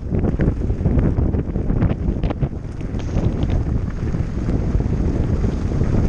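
Wind buffeting the microphone of a camera on a mountain bike riding down a loose gravel track, a steady rumble with many small clicks and knocks from the tyres and the bike rattling over stones.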